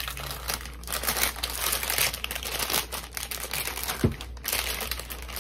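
Plastic cookie-dough package crinkling and rustling as it is handled and pulled open, with one short thump about four seconds in.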